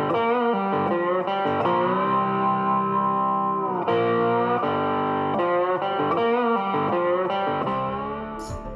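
Background music led by guitar, with some held notes bending in pitch.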